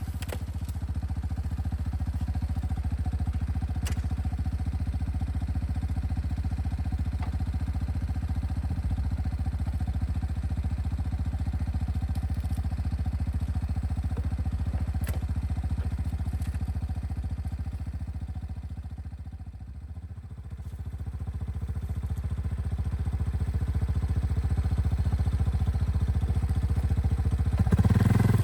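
An engine running steadily, easing off and dropping in pitch about two-thirds of the way through, then building back up.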